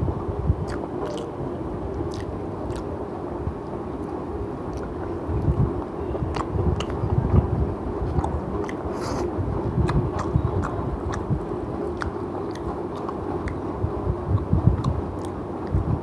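Close-miked chewing and biting of a mutton biryani meal, with many small wet mouth clicks and heavier bouts of chewing, over a steady low background hum.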